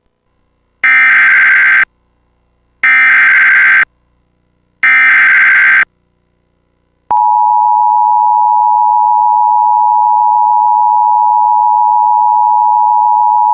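Emergency Alert System tones for a severe thunderstorm warning. First come the three SAME header data bursts, each about a second long with a second's gap between them, like modem noise. About a second after the last burst, the steady, loud EAS attention tone begins.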